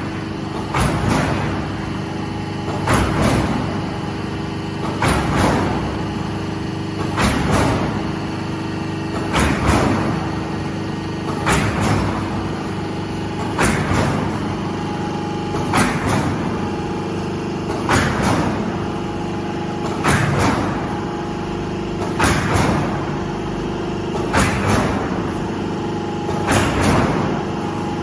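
Corrugated silo-sheet roll forming machine running with a steady motor hum. A sharp metallic bang with a ringing tail comes about every two seconds, the machine's repeating press stroke on the steel sheet.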